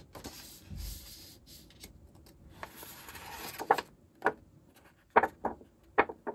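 Paper and card being handled: a soft rustling and sliding of sheets, then several sharp clicks as the card is picked up and held.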